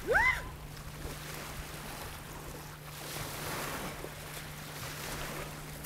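Shallow lake water lapping and splashing around a person wading out of it, with wind on the microphone and a steady low hum. A short, loud call rises and falls in pitch right at the start.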